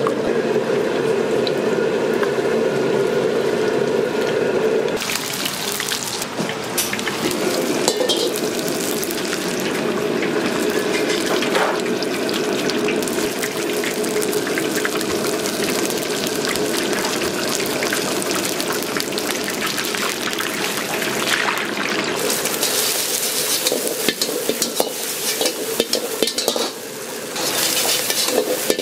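Food sizzling and frying in a wok while it is stirred with a metal ladle, with many short clinks of metal on metal. The sizzle turns louder and hissier about five seconds in, and again near the end.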